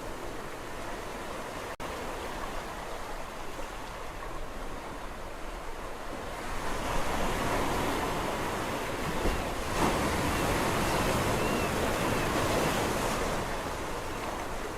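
Sea waves washing on the shore in a steady rush; about six seconds in a wave breaks and surges louder for several seconds, then eases back.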